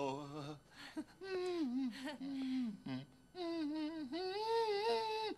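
A man singing a slow hymn tune in a high, wavering voice, gliding between notes and holding long ones, the last held for about two seconds before stopping abruptly.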